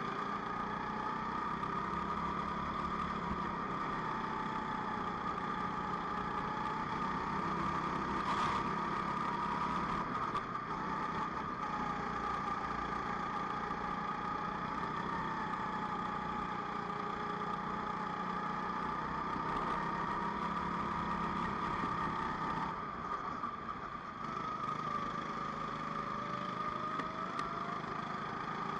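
Kart engines in a racing sim running at race speed, the pitch dipping and rising again through the corners, with several engines overlapping. A brief click sounds about eight seconds in.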